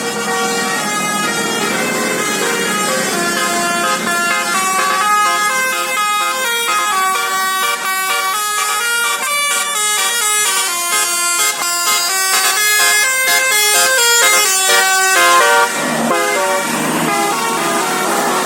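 A bus's 'telolet basuri' multi-tone musical air horn playing a fast melody of stepping notes, which breaks off suddenly near the end.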